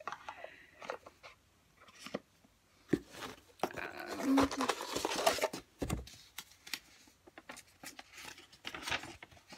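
Paper and cardboard packaging handled: rustling and crinkling with scattered clicks and taps. The loudest rustle comes about four to five and a half seconds in, and near the end a folded sheet of paper is unfolded.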